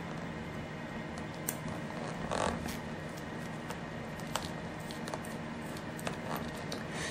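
Faint close-up hand-handling sounds at the floor's edge: a brief rustle about two and a half seconds in and a few light, separate clicks, over a steady low hum.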